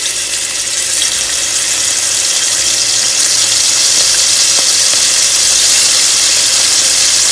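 Chicken breast pieces sizzling as they fry in hot oil, a steady hiss that grows louder as more pieces go into the pan.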